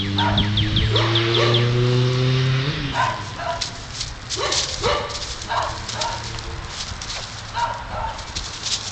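Dog barking in short, repeated barks about twice a second, starting about three seconds in. Before that, a low droning hum rises slightly in pitch and then stops.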